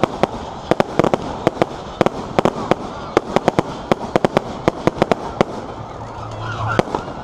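Fireworks going off in a rapid, irregular string of sharp bangs and cracks, several a second, thinning out after about five seconds.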